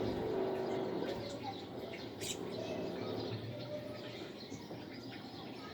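Small birds chirping in short, faint calls, with one sharp click a little over two seconds in.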